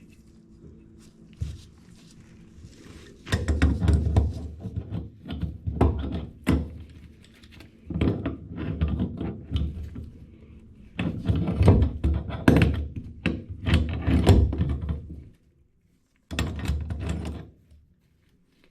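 Repeated knocking and clattering of hands and tools against a sink cabinet and fittings during faucet installation, coming in several clusters of knocks with short pauses between them.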